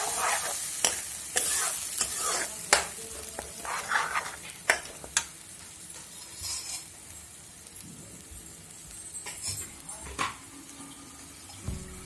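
Steel ladle stirring and scraping a thick masala paste that sizzles in a kadai, with sharp clicks of the ladle against the pan. The clicks come thick and fast for the first five seconds, then thin out and go quieter, with a few more about ten seconds in.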